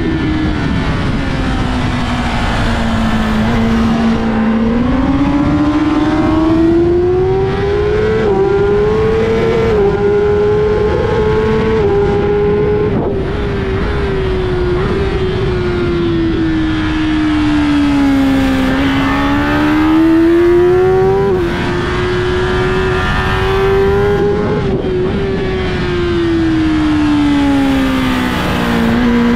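Kawasaki ZX-10R's inline-four engine under hard acceleration and braking. Its pitch climbs and falls several times, with small steps at gear changes, under steady wind rush on the onboard microphone.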